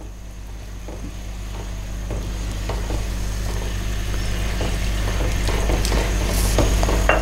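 Silicone spatula stirring gravy in a pan as cornflour slurry is mixed in to thicken it, with soft scrapes and taps against the pan. Underneath runs a steady low hum that grows gradually louder.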